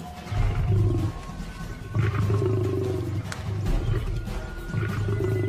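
Lions growling: three deep growls, each about a second long, over background music.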